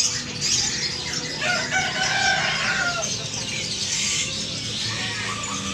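A rooster crowing, one long call starting about one and a half seconds in, over a steady chatter of many small birds chirping.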